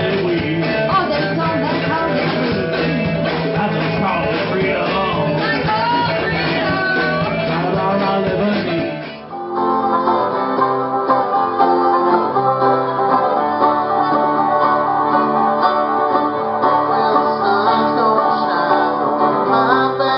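Bluegrass string-band music. It cuts suddenly to a different tune about nine seconds in.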